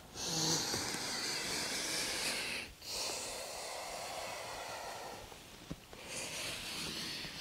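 A woman breathing slowly and audibly: three long breaths, each a soft rush of air, with short pauses between them.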